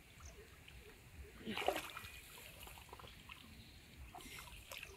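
Hands moving in shallow pond water among weeds, with small splashes and trickles throughout, a louder splash about a second and a half in and another smaller one near the end.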